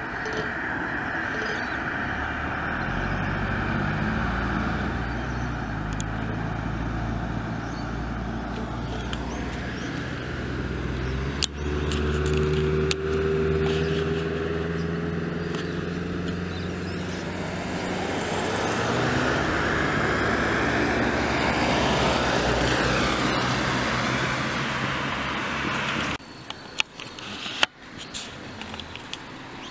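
Cars driving along a suburban street, engines and tyre noise swelling as they pass close by. About 26 s in the sound drops suddenly to a quieter background with a few sharp clicks.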